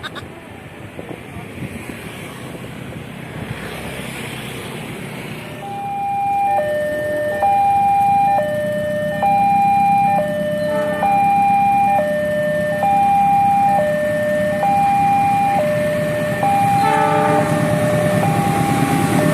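A two-tone hi-lo siren alternating between a higher and a lower note, each held just under a second, starting about six seconds in over a steady vehicle rumble.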